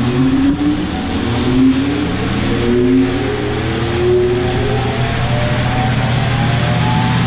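Grain bin drying fan spinning up after being switched on: a loud steady hum under a whine that climbs slowly in pitch as the fan gathers speed.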